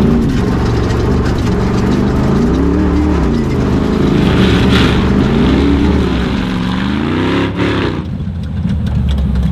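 Off-road trophy truck's engine revving up and down over and over as it is driven hard around a grass field, its pitch rising and falling every second or two.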